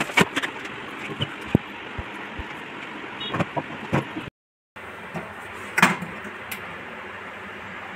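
Scattered knocks and clicks from handling a plastic water purifier and its tube fittings, over steady background noise. The sound cuts out briefly just after the middle, and the loudest knock comes about three-quarters through.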